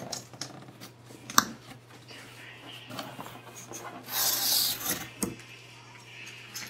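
Cardboard shipping box being opened by hand: flaps scraping and rubbing, with scattered knocks, a sharp one about a second and a half in, and a loud ripping rasp about four seconds in as the taped flaps are pulled apart.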